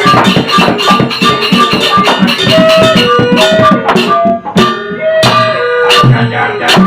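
Sasak gamelan ensemble playing a wayang Sasak gending. Rapid, even percussion strokes run under it, and from about a third of the way in a melody of held notes moves up and down in steps.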